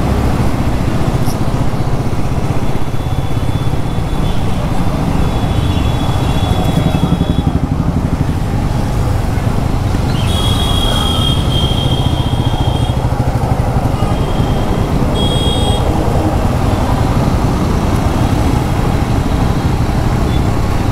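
Honda Dio scooter on the move through traffic: a steady, heavy rumble of wind, road and engine noise. A few short high-pitched tones cut in over it, the longest lasting two to three seconds about halfway through.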